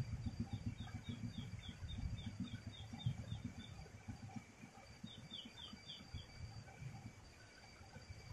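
A bird calling in two runs of quick, short falling notes, about four a second, the first run about three seconds long and the second about a second, over a low rumble.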